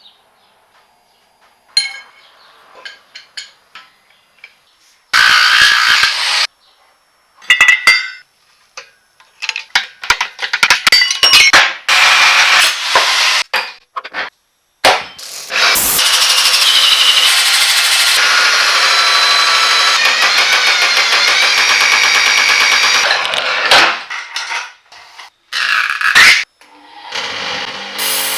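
Workshop tool sounds on cast-iron vise parts, cut together from several takes: scattered metal clinks and knocks, then a power tool running steadily for about seven seconds before more short bursts near the end.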